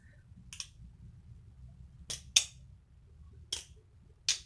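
Balisong (butterfly knife) flipped through a basic opening and closing, its handles clicking shut against the blade: about five sharp clicks at uneven intervals, two of them close together about two seconds in.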